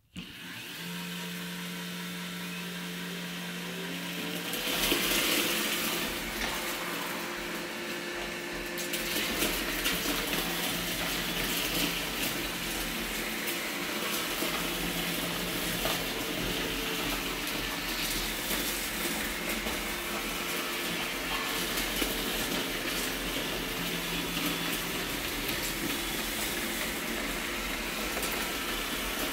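Roomba robot vacuums running in spot-cleaning mode: a steady whir of motors and brushes that starts abruptly and grows louder and fuller about five seconds in.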